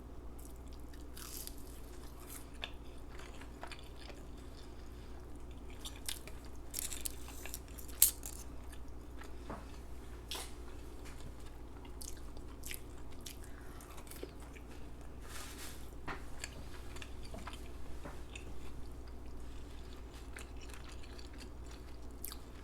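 Close-miked chewing of a McDonald's chicken nugget dipped in ranch: scattered short wet clicks and smacks of the mouth, with one sharper click about eight seconds in. A steady low hum lies underneath.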